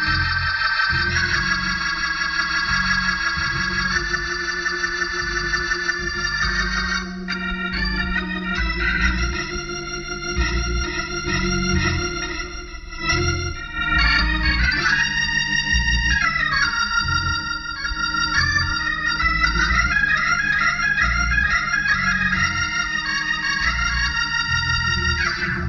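Organ worship music: sustained chords that change every few seconds over a pulsing bass line.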